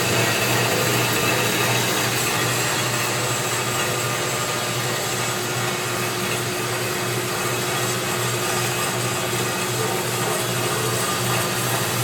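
Turn Pro 10 x 17 inch belt-drive horizontal band saw with a three-phase motor running steadily, a constant hum under an even whirring noise.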